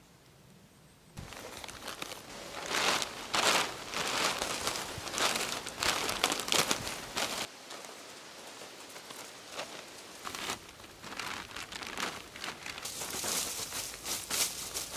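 Dry sticks and brush being handled and piled onto a debris shelter, rustling and crackling irregularly with sharp snaps, along with the crinkle of the plastic tarp beneath. It starts about a second in.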